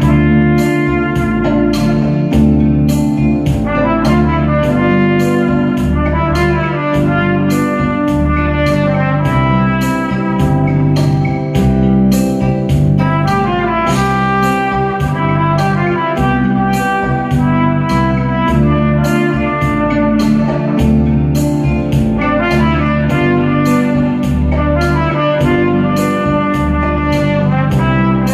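Trumpet playing a melody over a backing band with drums, bass and guitar, at a steady beat of about two a second.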